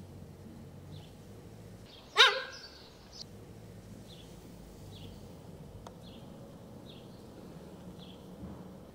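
A small bird chirps over and over in the background. About two seconds in comes one loud, short, high yelping animal call that fades quickly.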